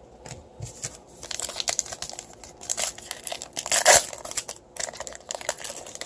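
Trading-card pack wrapper being torn open and crinkled by hand: a run of crackling, rustling tears, loudest about four seconds in.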